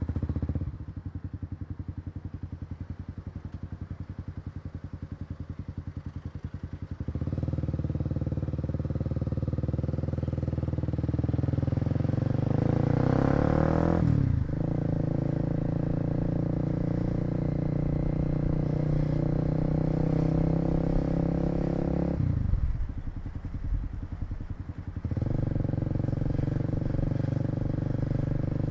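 Kawasaki KLX250 single-cylinder four-stroke motorcycle engine, heard from the rider's seat. It idles with a quick thumping pulse, then pulls away a quarter of the way in, its pitch rising through the gear, with an upshift about halfway. It runs steadily, drops back to idle about three-quarters of the way in, and pulls away again near the end.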